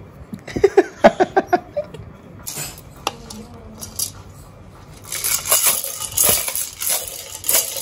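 Yellow plastic toy rattle shaken by a baby, its beads clattering in quick bursts that become busier and louder from about five seconds in.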